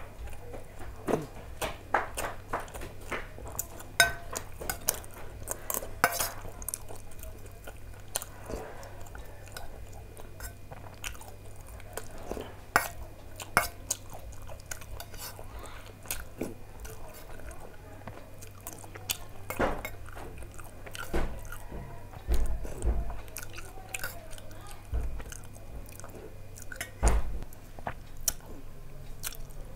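Close-up eating sounds: chewing, and a steel spoon clinking and scraping against a stainless steel bowl and plate in many short, sharp strikes. A few dull low knocks come toward the end.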